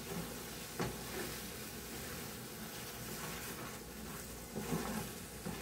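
Mashed potato, eggplant and tomato chokha sizzling faintly in an oiled pan while a wooden spoon stirs it, with a few light knocks of the spoon against the pan about a second in and near the end.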